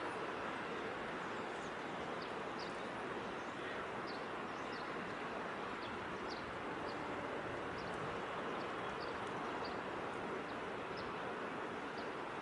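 Steady outdoor background noise with small birds' short, high chirps scattered throughout.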